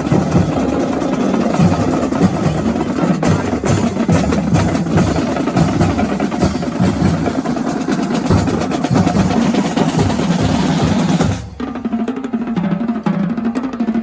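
Marching drums playing loud snare and bass drum patterns with rolls, stopping suddenly about three seconds before the end, leaving a quieter low sound.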